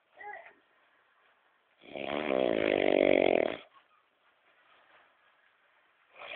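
A sleeping man snoring loudly: one long snore of nearly two seconds, about two seconds in, with the next snore just beginning at the very end.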